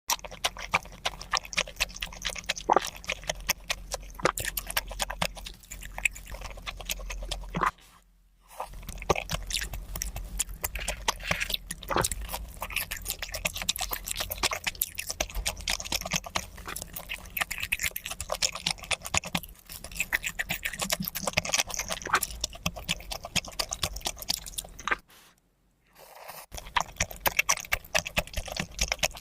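Close-up chewing and crunching of seafood: a dense, continuous run of sharp wet clicks and crunches, broken twice by a brief silence.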